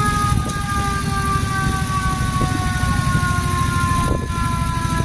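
Engine of a 1940s military vehicle running at low speed, with a high whine over it that slowly falls in pitch.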